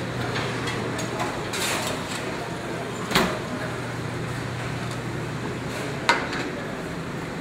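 Steady hum of the kitchen's exhaust hood, with a sharp metallic knock about three seconds in as the convection oven door is shut and another about six seconds in as the hot sauté pan is set down on the range.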